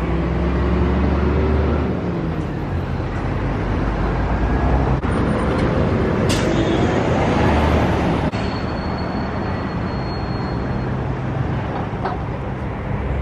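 City street traffic dominated by the low rumble of a double-decker bus engine, with an engine note that rises in pitch about six seconds in as a vehicle accelerates.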